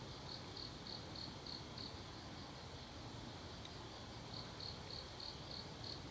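Cricket chirping in two runs of about six even chirps, roughly three a second, over a steady high insect trill.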